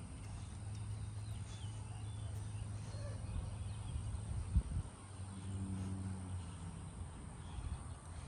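Faint suburban outdoor ambience: a steady low hum with a few faint bird chirps, a soft knock about halfway through, and a brief low drone after it.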